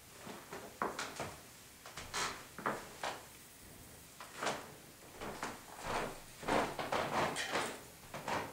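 Scattered soft knocks, clicks and rustles of handling and moving about at close range, irregular and unpitched.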